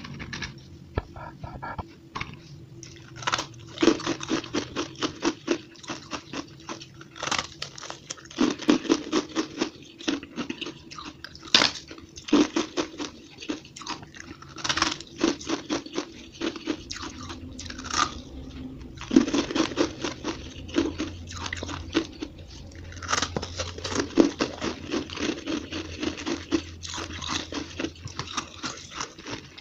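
Chunks of frozen shaved ice being bitten and chewed close to the microphone: rapid, sharp crunching in runs of many bites with short pauses between. The runs start a few seconds in, and the whole is played back at double speed.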